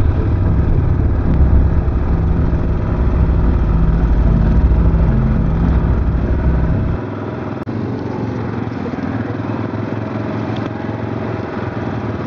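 ATV engine running while the quad is ridden along a rough dirt trail, a steady mechanical drone. A heavy low rumble drops away abruptly about seven seconds in, leaving a lighter engine drone.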